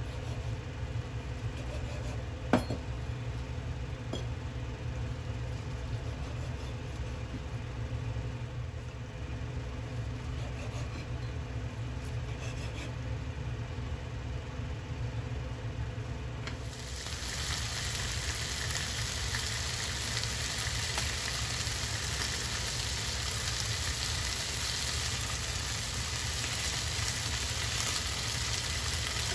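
Steady low hum with quiet knife work on a wooden cutting board and one sharp knock about two and a half seconds in. About seventeen seconds in, chicken thigh pieces start sizzling in a hot non-stick frying pan, a steady frying hiss.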